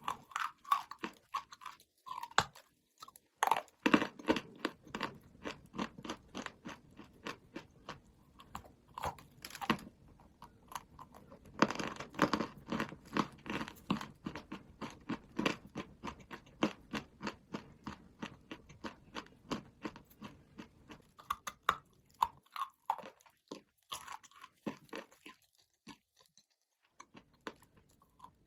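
Dry chalk being bitten and chewed close to the microphone: dense runs of crisp crunching, several crunches a second, with louder bites a few seconds in and about twelve seconds in, thinning out near the end.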